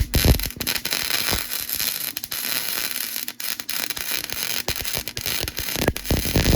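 Electric arc welding: a steady, dense crackle with irregular sharp pops, as a washer is welded onto the end of a broken bolt.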